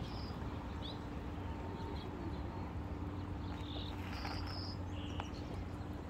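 Outdoor ambience by a pond: a steady low rumble with a faint steady hum, and scattered short, high chirps.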